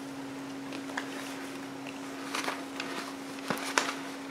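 Hands handling toys and a crocheted pillow: a few soft clicks and rustles over a steady hum.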